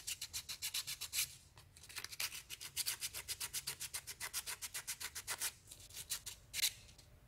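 Sandpaper rubbed by hand in quick back-and-forth strokes on the aluminium disc of a Sony ED Beta VCR head drum, with a short pause about a second and a half in and a few last strokes near the end. The strokes are grinding off the aluminium oxide and old glue so that new glue will hold.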